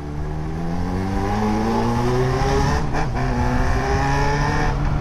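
Yamaha XJ6's inline-four engine accelerating hard, its pitch rising steadily, with a brief cut near three seconds as it shifts up, then rising again until another upshift near the end.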